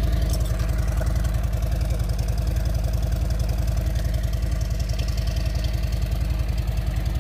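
Harley-Davidson Milwaukee-Eight 107 V-twin idling steadily through its stock twin exhausts, with an even low pulsing beat.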